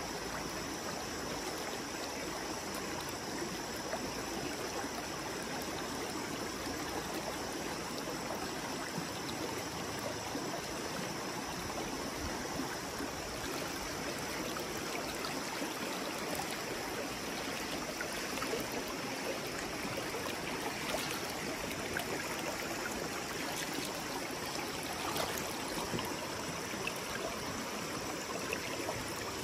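River water flowing steadily, a constant even rush, with a few faint clicks in the second half.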